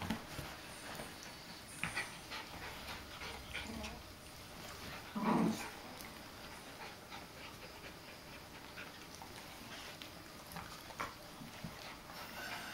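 Two small dogs play-wrestling close up: soft panting and fur rustling, with a brief louder sound about five seconds in.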